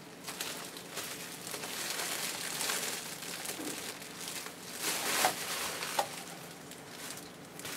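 Bubble wrap crinkling and rustling as it is unwrapped and pulled off a plant, with a louder burst of crinkling about five seconds in.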